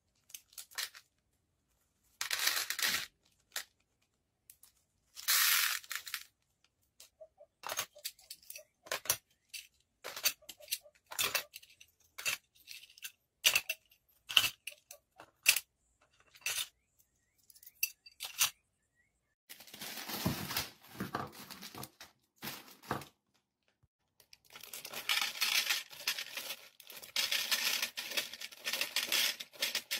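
Small plastic beads clicking and rattling in short, scattered bursts as they are picked up and dropped into the compartments of a plastic bead organizer box. From about two-thirds of the way in, longer stretches of plastic bead bags crinkling and being opened.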